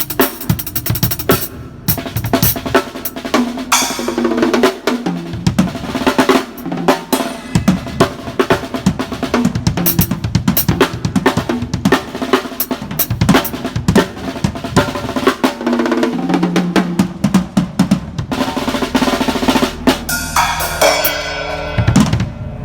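Drum kit played with fast strokes and rolls on the snare and bass drum, closing with a long ringing hit near the end.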